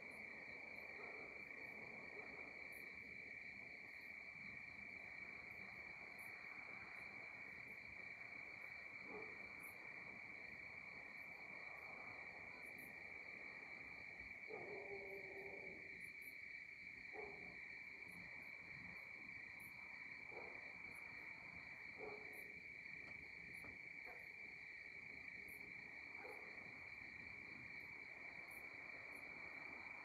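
Faint, steady night chorus of crickets: a continuous high trill with no breaks. A few short, lower calls from another animal stand out over it, the clearest about halfway through.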